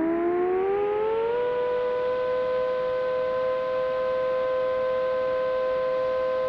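A siren winding up: its pitch rises for about the first second and a half, then holds steady as a two-note chord.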